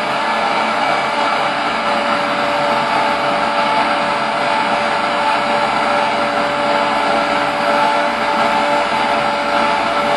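Drone noise from an electric razor, picked up by microphones and an electromagnetic pickup and run through effects pedals: a loud, steady, dense buzz with one held mid-pitched tone.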